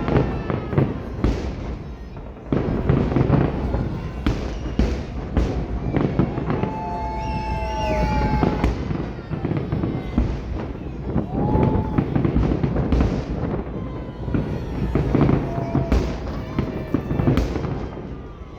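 Fireworks display: a dense run of bangs and crackling shell bursts over a constant low rumble, with a short lull about two seconds in.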